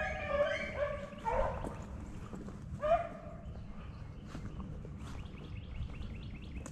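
Beagles baying in overlapping calls, a pack running a swamp rabbit. Several calls come in the first second and a half and one more about three seconds in, then fainter short yips.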